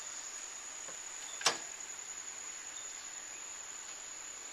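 Steady, high-pitched insect drone on a single unchanging pitch, typical of rainforest crickets or cicadas, with one sharp click about a second and a half in.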